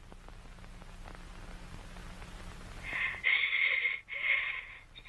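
Horror-video sound design: a low rumble and hiss that swells steadily. About three seconds in, a harsh, distorted creature voice with a thin, radio-like sound cuts in, in two short bursts.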